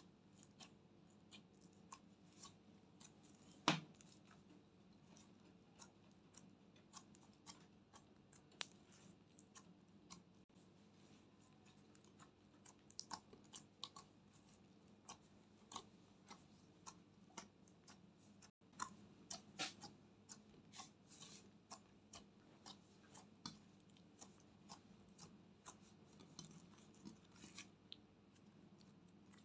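Hands squishing and stretching sticky slime mixed with clay and glitter eyeshadow, giving faint scattered sticky clicks and small pops. One louder pop comes about four seconds in, and a quick flurry of clicks a little past the middle.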